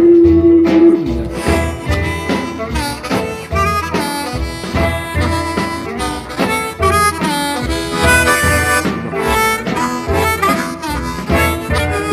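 Diatonic harmonica in A played with tongue blocking: a blues phrase of held and bent notes over a low, regularly repeating beat.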